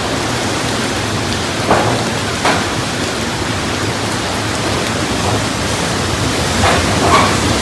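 Hurricane wind and heavy rain: a loud, steady rushing noise, with a few brief sharper sounds about two seconds in and again near the end.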